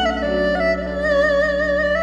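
Instrumental background music: a wavering lead melody with vibrato over held low notes.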